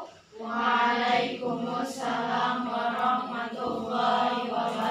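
A roomful of girls speaking together in unison, a long drawn-out chanted reply in several held phrases that starts about half a second in.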